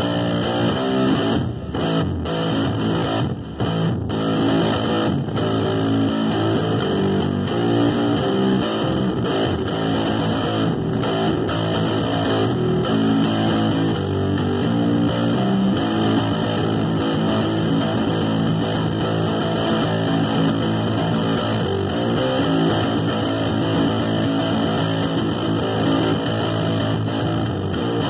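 Electric bass guitar played without a break, a busy run of plucked notes.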